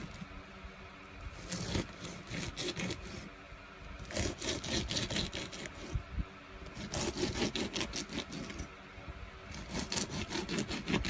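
Slime being squeezed and kneaded by hand, making rapid crackling clicks in four bursts of a second or two each.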